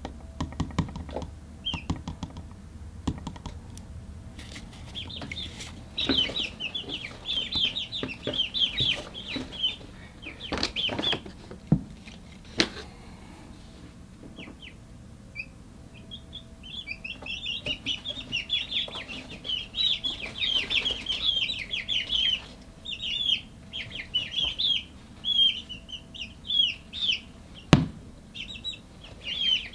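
A brooder of young chicks peeping and chirping in quick strings of short, high calls. The calling comes in two spells with a quieter stretch between them, and a few sharp knocks stand out.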